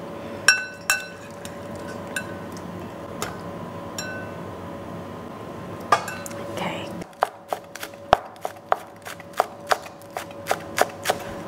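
A few light clinks of a utensil against the plate and steamer pot as spareribs are lifted out. Then, from about seven seconds in, a chef's knife chopping spring onion on a cutting board, quick sharp chops about three a second. A faint steady hum runs underneath.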